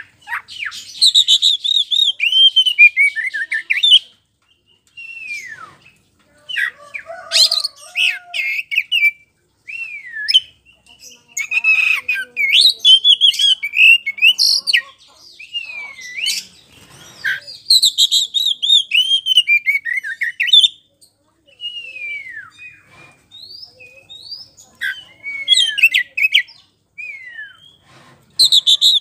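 Oriental magpie-robin of the white-bellied 'kacer poci' type in full, loud song: bouts of varied whistled phrases and rapid downward-sliding trills, broken by short pauses.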